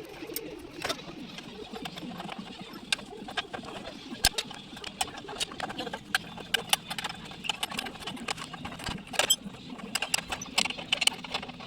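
Irregular sharp clicks and light knocks, at times several a second, over a faint low murmur.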